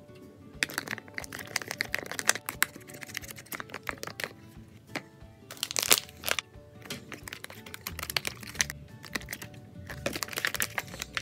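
Slime being squished and pulled by hand, making dense crackling and clicking sounds, with the loudest burst of crackles about six seconds in. Background music plays under it.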